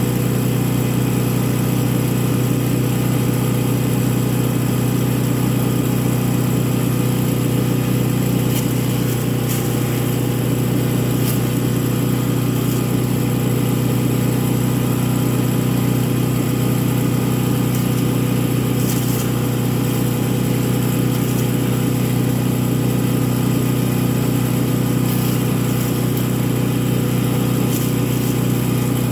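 Single-cylinder engine of a 224cc Champion wood chipper running steadily at constant speed, with a few faint brief clicks.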